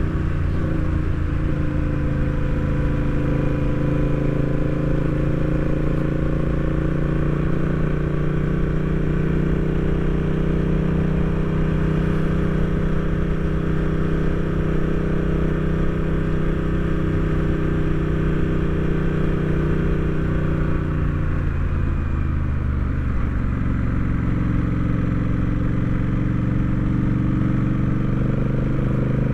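Honda Rebel 1100 DCT's parallel-twin engine running steadily while riding, heard from on the bike. Its note drops about three quarters of the way through as the bike slows, then rises again near the end as it pulls away.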